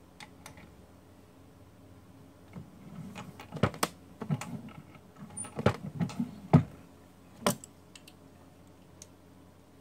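Scattered sharp metallic clicks and knocks from a single-stage reloading press and its seating die as a 224 Valkyrie round is set in, a bullet seated and the round taken out. The clicks start a couple of seconds in and stop about three-quarters of the way through.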